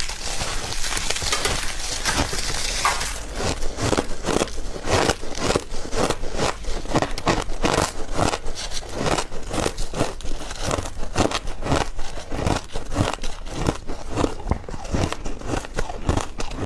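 Crumbled ice being chewed close to the microphone: a dense, continuous run of sharp crunches, several a second.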